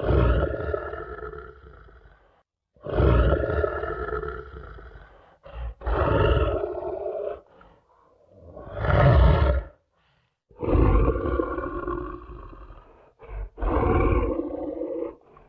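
Big cat roaring: about six loud roars in a row, each lasting one to two seconds, with short pauses between them.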